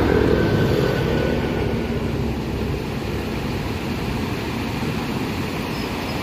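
Steady rushing of the swollen Emme as the front of a flood surge carrying driftwood and logs pours past, a low noisy rumble without any clear pitch. It eases a little over the first few seconds.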